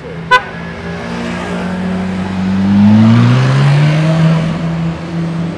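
Ferrari 458 Italia's V8 accelerating hard as the car pulls away, its pitch climbing, dropping at an upshift about three seconds in, then climbing again. A brief, loud beep sounds just before the engine builds.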